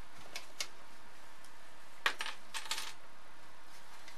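Small hard clicks and a brief clatter of a bug zapper's housing parts being handled during disassembly: a couple of faint clicks, one sharper click about two seconds in, then a short rattle of clicks.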